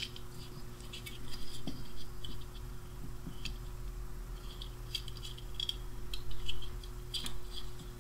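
Light, irregular clicks and scratches as a small blade and fingers work at the mica spacers and metal plate of a dismantled 6L6G beam pentode's electrode assembly, over a steady low electrical hum.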